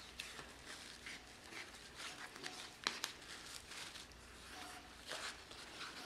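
Wood wool (excelsior) handled and pulled apart by hand: faint, dry rustling and crackling of the fibres, with one sharper click about three seconds in.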